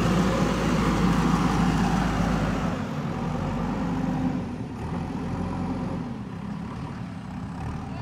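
JCB backhoe loader's diesel engine running steadily as the machine drives off over soft ground, growing fainter about three seconds in as it moves away.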